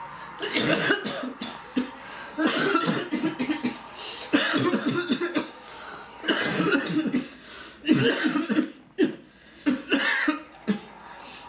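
Coughing in repeated fits: about eight bouts of a second or less each, with short pauses between, the last few shorter.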